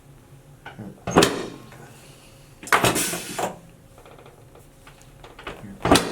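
Chiropractic adjustment of the lower back: three short, sudden rustling thrusts, each sharp at the start and fading quickly, about a second and a half apart.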